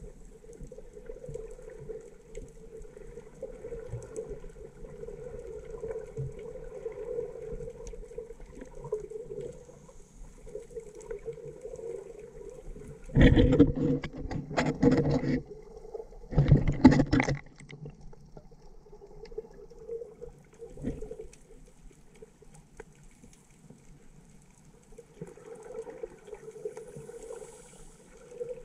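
Muffled underwater sound picked up by a camera below the surface: a steady low hum, broken about halfway through by two loud bursts of splashing and sloshing as the camera comes up near the surface.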